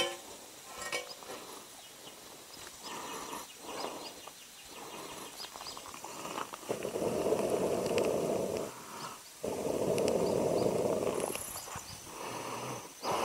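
Swedish fire torch burning, with small crackles of the split log throughout. About halfway through come two long whooshing breaths, each about two seconds, blown into the fire to fan it.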